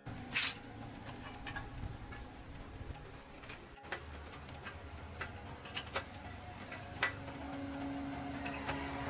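Scattered light clicks and taps at irregular spacing, typical of hand-tool work on bicycle parts, with a steady low hum joining about seven seconds in.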